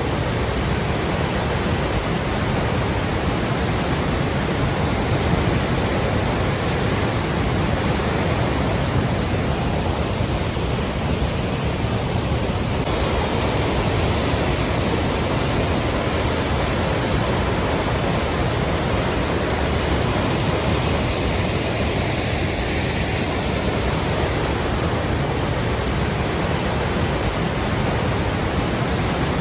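Flowing water rushing steadily and evenly, unbroken and without change in level.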